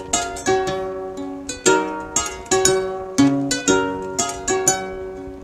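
Kora, the 21-string West African calabash harp-lute, played solo: a melody of plucked notes, a few a second, each ringing out and fading.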